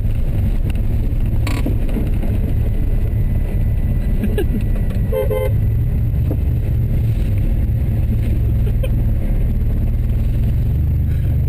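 Steady low rumble of idling vehicles waiting in a ferry queue, with a short car-horn toot about five seconds in.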